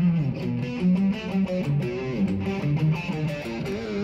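Electric guitar played through an amplifier: a quick run of picked notes and short phrases.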